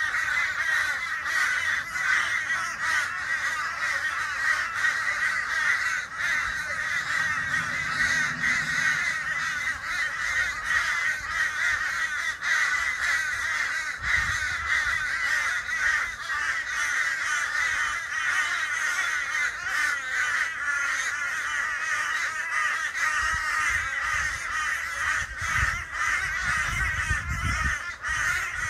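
A large group of crows cawing all at once, a continuous overlapping chorus of calls with no break.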